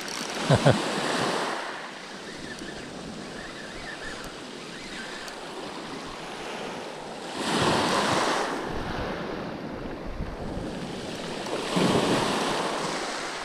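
Waves breaking and washing over a shingle beach, the surf swelling up three times: near the start, about halfway and near the end. Wind blows on the microphone throughout.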